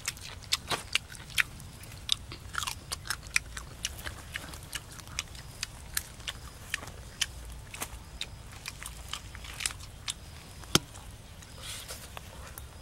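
A person biting and chewing roasted chicken, with many irregular, crunchy, sharp clicks and mouth smacks. The sharpest crack comes near the end.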